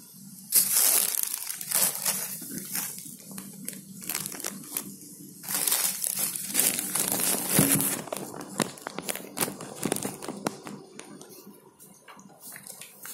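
Paper food wrapping rustling and crinkling as a packed rice meal is opened and handled. There are loud bouts of crackling for the first several seconds, then lighter crinkles.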